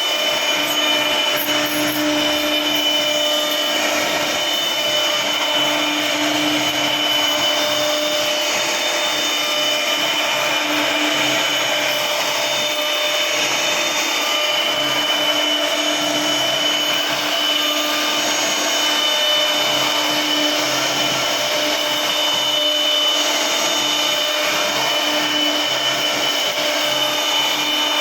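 CNC router spindle cutting wood, a steady high whine over the hiss of the bit carving, rising and falling slightly as it moves along the cut.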